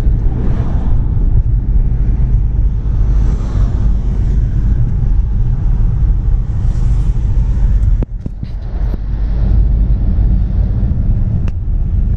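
Steady low rumble of a car on the road, engine and tyre noise. The noise dips briefly about eight seconds in, and there is a sharp click near the end.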